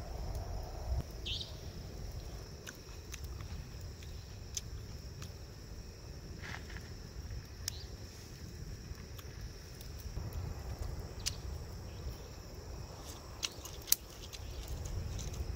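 Open wood campfire crackling: scattered sharp pops, one louder near the end, over a low steady rumble of the burning fire.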